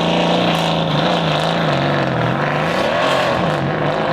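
Audi RS6 C8's twin-turbo V8 with the particulate filter (OPF) deleted from its exhaust, held at steady revs that dip briefly twice about two and three and a half seconds in.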